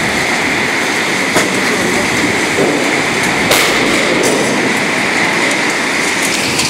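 Tornado winds blowing loud and steady, with a few sharp knocks through them, the loudest about three and a half seconds in.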